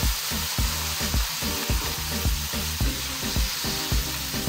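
Boneless chicken strips sizzling in hot oil in a non-stick wok, stirred with a wooden spatula as they fry to change colour. Beneath the sizzle run regular low thumps, about three to four a second.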